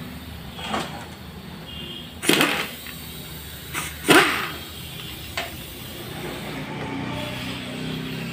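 A handful of sharp metallic knocks and clatters as the clutch-side cover of a Hero Honda Splendor NXG engine is worked loose and lifted off. The loudest knocks come about two and four seconds in, each ringing briefly, over a steady low hum.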